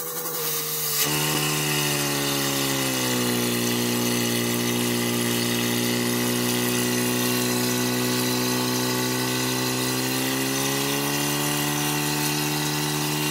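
Portable fire pump's small engine running at high revs as it drives water through the attack hoses to the nozzles, a steady engine note that comes in strongly about a second in, sags slightly in pitch about three seconds in and climbs again near the end.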